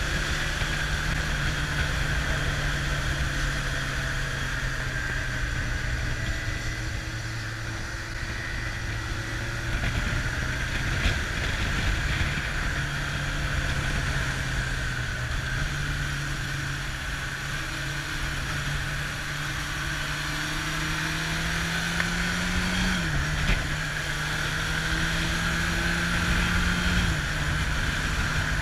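Kawasaki Zephyr motorcycle's air-cooled inline-four engine running at steady cruising revs, heard from on the bike. Its pitch climbs slowly for a few seconds, drops sharply with a gear change about three quarters of the way in, and steps again near the end.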